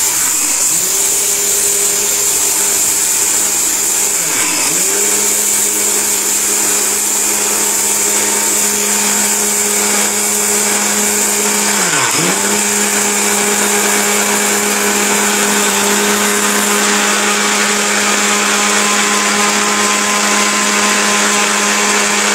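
Orpat 1600-watt blender motor running at speed with its small stainless-steel jar, grinding dry rice into flour: a steady high whine over a rushing hiss. Twice, about four and twelve seconds in, the pitch briefly drops and climbs back as the motor is let off and pulsed on again.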